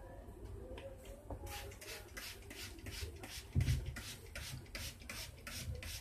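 Rhythmic rubbing strokes, about four a second, starting about a second and a half in, with one dull thump near the middle.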